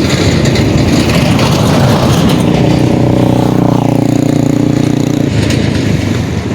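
Road traffic: a motor vehicle passes close by, its engine a steady drone from about two and a half seconds in that falls away about five seconds in, over loud rushing road noise.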